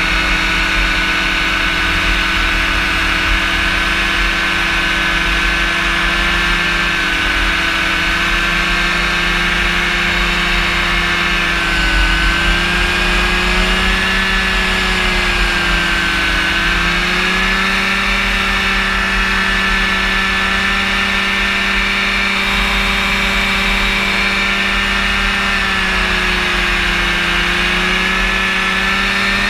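Rotax engine of a powered parachute running at steady cruise power in flight, its pitch drifting gently down and back up a couple of times, with a low rumble of wind on the microphone.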